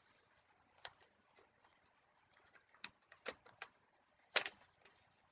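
A few faint, short clicks and rustles, about five spread over the pause, the loudest near the end, against quiet room tone.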